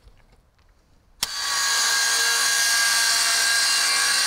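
Circular saw cutting fiber-cement siding: a steady whine over a harsh hiss, which comes in suddenly about a second in after near quiet.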